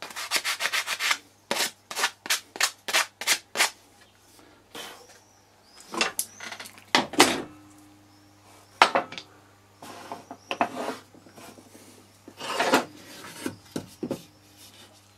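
Hand-sanding a small wooden block: a quick run of short rasping strokes, then slower strokes about two or three a second. After a few seconds come knocks and clatter of small wooden pieces and a board being handled and set down on a table saw's metal top.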